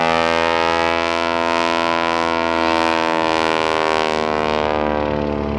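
Aerobatic biplane's engine and propeller droning loudly as it flies by, a steady many-toned drone whose pitch sinks slightly in the later seconds.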